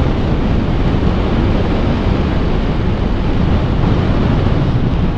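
Steady wind rush on the camera's microphone from a motorcycle riding at highway speed, about 80 km/h.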